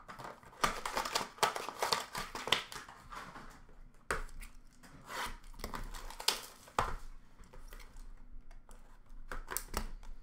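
Hands tearing open and handling hockey card packs and boxes: irregular crinkling and rustling of wrapper and cardboard, with sharp clicks.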